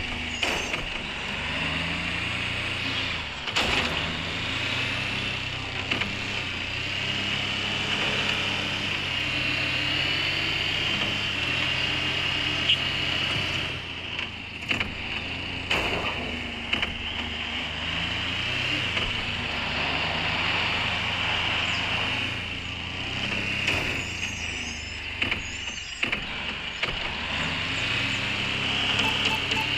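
A 4x4 vehicle's engine running under changing load, its pitch stepping up and down repeatedly, with scattered sharp knocks and clatters.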